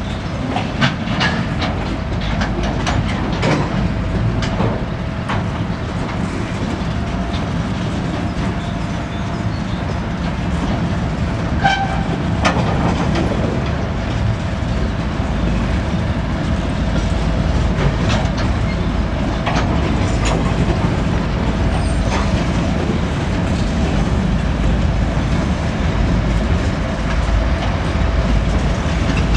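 2M62U two-section diesel locomotive's two-stroke diesel engines running as it moves with a rake of open wagons while shunting. Wheels clack over rail joints as it goes, and a faint steady whine runs under the engine noise.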